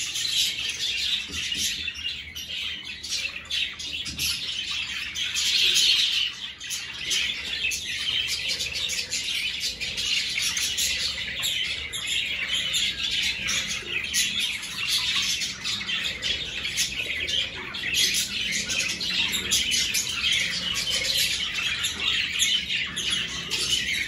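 Budgerigars in an aviary flock chattering and chirping, many birds calling over one another without pause in a steady warbling din.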